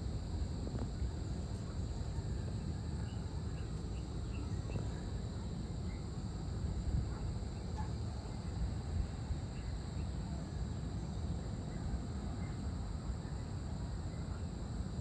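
Outdoor evening ambience: a steady high trilling of insects, with scattered short bird chirps over a low, constant rumble.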